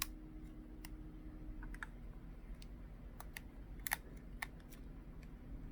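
Faint, irregular small clicks and taps of a tool and plastic parts on the tablet's board as a flex cable is seated in a connector and its locking latch is closed.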